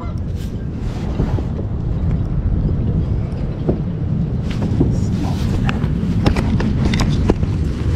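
Wind buffeting the microphone with a steady low rumble. About halfway through, a run of sharp, irregular clicks and knocks starts.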